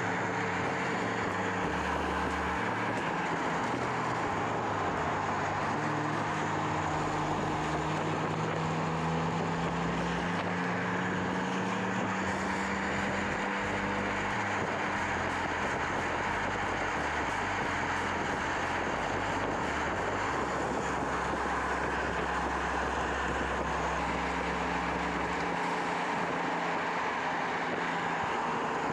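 Toyota GR Corolla's turbocharged 1.6-litre three-cylinder engine running steadily at speed, its pitch creeping slowly upward for several seconds, over continuous tyre and wind noise.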